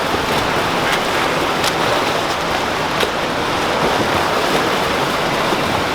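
Steady rush of pool water churned by swimmers splashing through a freestyle set, with a few faint sharp splashes or ticks on top.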